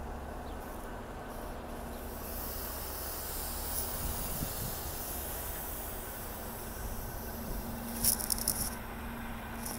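City transit bus standing at a stop with its engine idling in a steady low hum. About two seconds in, a long hiss of escaping air rises and runs for several seconds. Near the end comes a brief clatter of sharp clicks.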